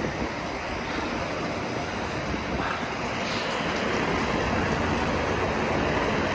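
Steady rushing noise of inline skates rolling fast on wet asphalt, mixed with wind on the microphone, growing slowly louder.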